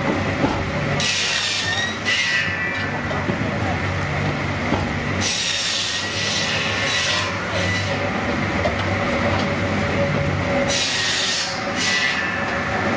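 Log segment sawing machine running with a steady motor hum while its saw cuts through raw logs three times, each cut a loud rasping hiss lasting a second or two, about a second in, midway and near the end.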